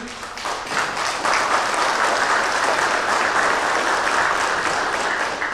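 Audience applauding, a dense patter of many hands clapping that swells over the first second and then holds steady.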